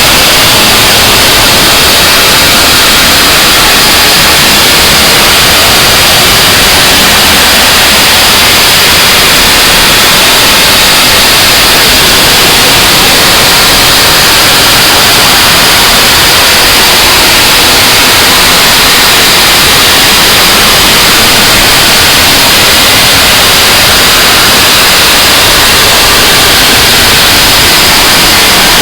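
Harsh noise wall music: a loud, unchanging wall of static hiss with no rhythm, pitch or breaks, heaviest in the upper middle and sharply thinner above it.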